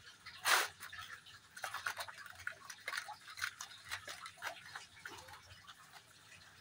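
Hands spreading and pressing potting soil into a thin black plastic seedling cell tray: irregular crackles and small clicks of soil and flexing plastic, with one louder crackle about half a second in.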